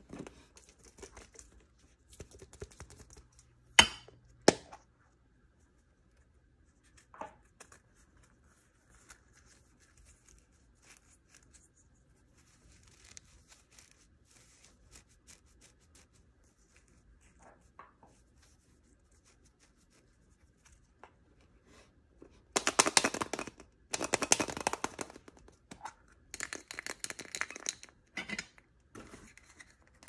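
Unboxing handling sounds: two sharp clicks about four seconds in, then faint rustling. Near the end come several long, loud bursts of packaging being torn and crinkled open, typical of a blind bag being opened.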